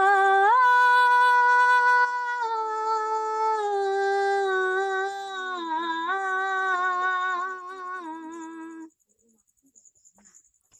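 A woman singing a long wordless 'aah' vocalise in a Bengali Islamic gazal, unaccompanied. A held note steps up about half a second in, then she winds down through several pitches with a wavering vibrato and stops about nine seconds in.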